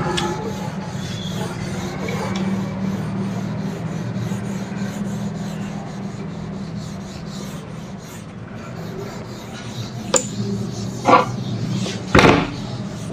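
Felt whiteboard eraser rubbing back and forth across a whiteboard, wiping off marker writing. Near the end come three short sharp knocks or scrapes, the last the loudest.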